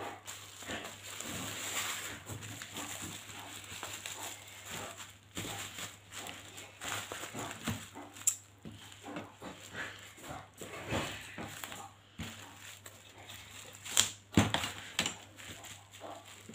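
Bubble wrap crinkling and rustling in irregular crackles as it is handled and folded around a piece of cardboard, with one sharper, louder crackle about fourteen seconds in.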